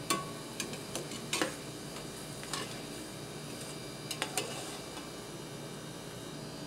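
Metal ladle and slotted spoon clinking against aluminium pots as beef stock is ladled into risotto rice and stirred in: a handful of sharp clinks, the loudest about a second and a half in and a quick pair just after four seconds, over a low steady hiss.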